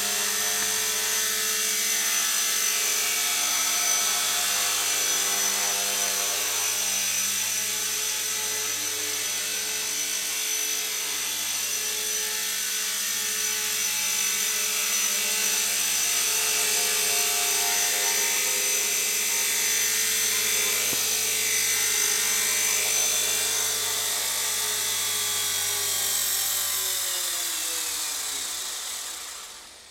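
Align T-Rex 250 electric RC helicopter in a scale Mi-24 Hind fuselage flying: the steady high-pitched whine of its motor and the buzz of the spinning rotors. Near the end the pitch falls and the sound dies away as the rotor spools down.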